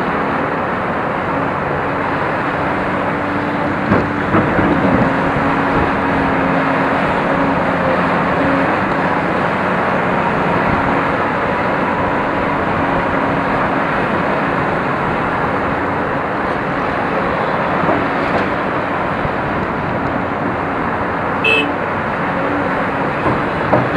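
Cat 349 excavator's diesel engine and hydraulics running under load, a steady drone with a humming tone, while the machine digs soil and swings to dump it. A few brief knocks stand out, one about four seconds in and another near the end.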